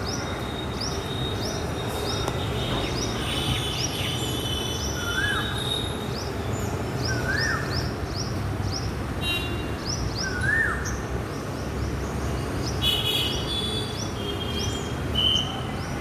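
Small birds chirping: a long run of short, high, upswept notes repeated a few times a second, with a lower rising-then-falling call heard three times, over a steady low background rumble.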